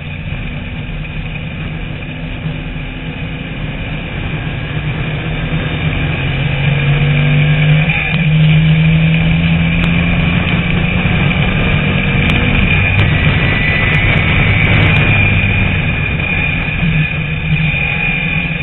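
TVR Tuscan race car's engine heard onboard at racing speed. Its note climbs and gets louder as it accelerates about a third of the way in, holds at high revs, then eases back near the end as the driver lifts.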